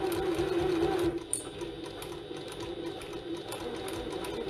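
Janome HD9 heavy-duty straight-stitch sewing machine running and stitching a seam through fabric. It is loudest for about the first second, then runs on steadily a little quieter.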